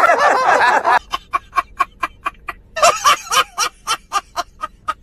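Men laughing: a hearty burst of laughter, then a long run of short, rapid laugh pulses about six a second, with a louder laugh about three seconds in.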